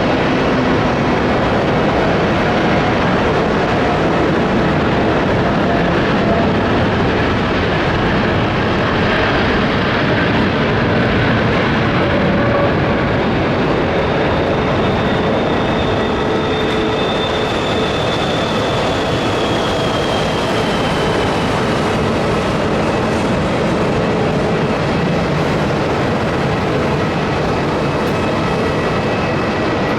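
Boeing 787-8 jet engines at take-off thrust: a loud, steady roar, with a faint high whine that falls in pitch around the middle.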